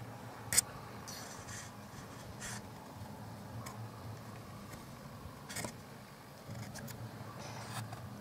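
Quiet outdoor ambience with a steady low hum of distant road traffic. A single sharp click sounds about half a second in, the loudest thing here, and a few short, soft rustles follow through the rest.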